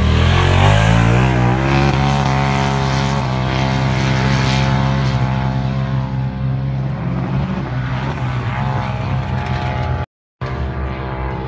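Can-Am Maverick X3 side-by-side's turbocharged three-cylinder engine running hard at high revs as it climbs a sand dune. Its pitch dips and rises in the first second or two, then holds as a steady drone. The sound cuts out briefly near the end.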